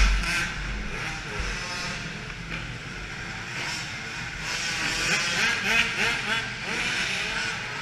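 Several small quad engines revving around an indoor dirt track, their pitch rising and falling as they accelerate and let off, with a low rumble in the first second or so.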